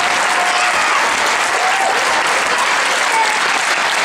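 A large crowd of schoolchildren applauding steadily, with a few voices calling out over the clapping.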